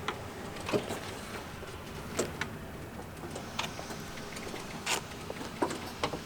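Irregular light mechanical clicks and knocks, about a dozen spread through, over a low steady hum, with the aircraft's radial engine not yet running.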